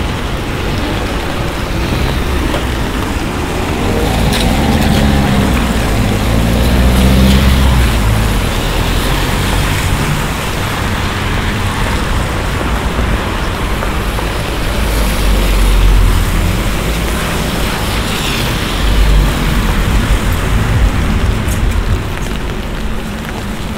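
City traffic on a rain-soaked street: a steady hiss of rain and tyres on wet road with a low rumble, and a vehicle's engine passing about five seconds in.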